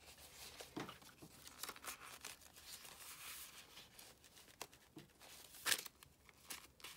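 Folded paper signature pages being handled: rustling and crinkling with scattered small taps and clicks, the sharpest about three quarters of the way through.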